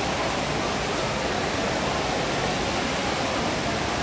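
Steady wash of indistinct crowd noise in a large indoor hall, many voices blurring together into an even hiss-like murmur.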